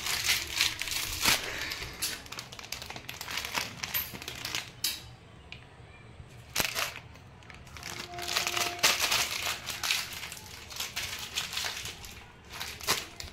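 Plastic snack packet crinkling in repeated bursts as it is handled and tugged at, with a brief lull about five seconds in.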